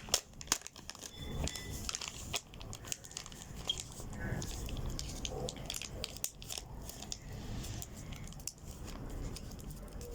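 Plastic Ziploc bag crinkling and crackling in irregular bursts as hands press the slime inside it and squeeze out trapped air.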